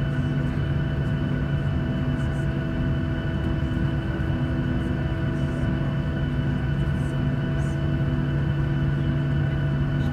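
Cabin noise of a Boeing 737-700 taxiing, its CFM56-7B turbofans near idle giving a steady low hum with several constant tones over it.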